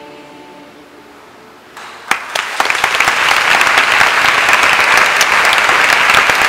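The last held chord of a choir fades out, then after a short hush an audience breaks into applause about two seconds in, building quickly to steady, loud clapping.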